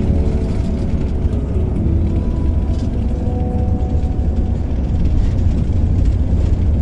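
Steady low rumble of a coach's engine and road noise heard from inside the passenger cabin, with sustained music notes faintly over it.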